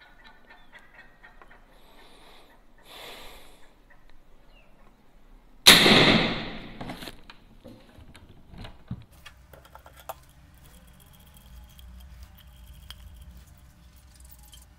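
A PCP air rifle fires a fishing arrow: one sharp, loud discharge about six seconds in, fading over about a second.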